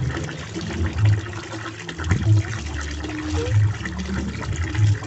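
Tap water pouring steadily into a basin of water, with clothes being washed by hand in a second basin. A low throb repeats about every second and a quarter.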